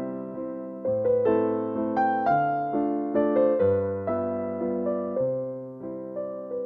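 Background piano music: gentle chords struck and left to fade, changing about every second or so.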